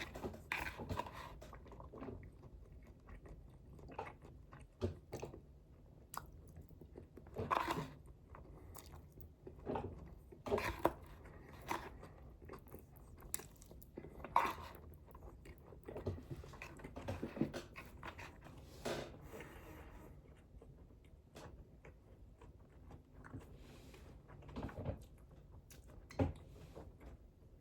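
A person chewing and biting into food, with irregular crunches and clicks about a second or two apart.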